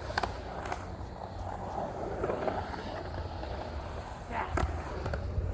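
Skateboard wheels rolling and carving across a concrete pool, a steady rumble and hiss. Sharp clacks come just after the start and again about four and a half seconds in.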